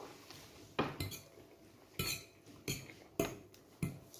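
Metal fork clinking and scraping against a bowl while twirling and lifting fettuccine, about six separate sharp knocks over a few seconds.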